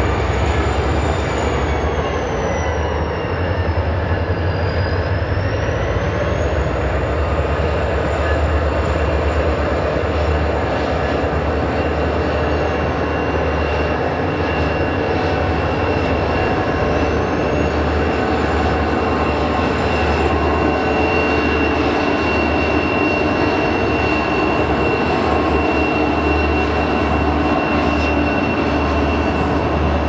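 EMD diesel-electric freight locomotives and their cars rolling slowly past, a heavy steady engine rumble under a high steady whine. A thinner high tone dips and rises again in the first few seconds.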